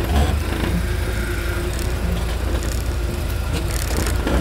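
Off-road 4x4's engine running low and steady as the vehicle crawls over rocks, with a few short knocks.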